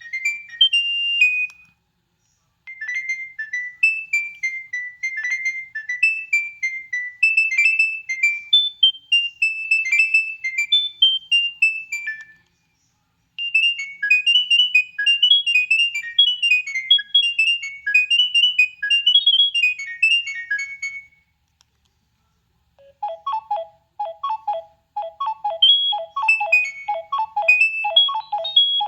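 Preloaded ringtones on a Nokia 6610 mobile phone playing one after another through its speaker: the end of one tune, then two different high electronic melodies, each followed by a second or so of silence. A third ringtone starts about 23 seconds in, with lower notes in a fast repeating pattern.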